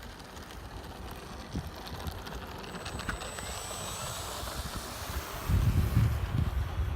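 Radio-controlled T-28 model airplane flying past, its motor a faint high whine that swells about midway. Wind buffets the microphone in heavy gusts near the end.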